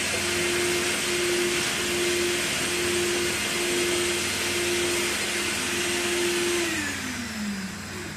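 A vacuum-cleaner-like electric motor running with a steady hum and hiss, then winding down with a falling pitch about seven seconds in.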